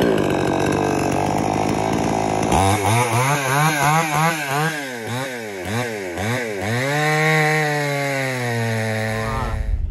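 Two-stroke chainsaw, freshly repaired and fitted with a new chain. It runs at full speed, then is revved up and down rapidly, about twice a second. It then dips and holds steady in a log cut, its pitch slowly sinking under load.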